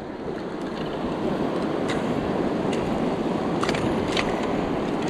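Creek water rushing steadily, with a few faint sharp clicks.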